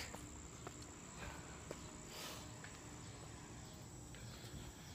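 Faint steady high-pitched trill of crickets, with a few soft clicks.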